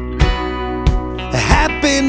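Background music: a song with strummed guitar and a steady beat. A singing voice comes in near the end.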